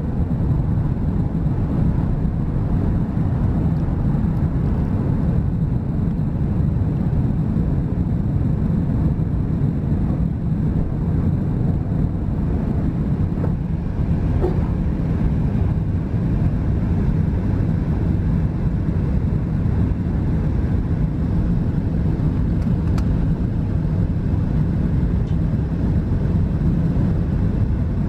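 Steady engine and rushing-air noise inside the cabin of a British Airways Airbus A380 in its initial climb after takeoff, heard from a window seat over the wing. Its four Rolls-Royce Trent 900 turbofans are running at climb power, giving a deep, even rumble that holds at the same level throughout.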